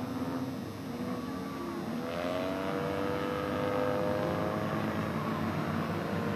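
Skid plate race cars' engines running and revving at a distance, several notes overlapping, one climbing steadily from about two seconds in, over a steady rushing noise.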